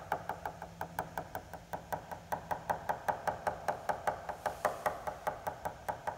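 Tap test on a glider's composite wing skin: a small tool held in the fingers taps the surface rapidly and evenly, about five taps a second. The taps change tone where they pass over the front face of the main spar, where the skin is backed by the spar rather than the foam core.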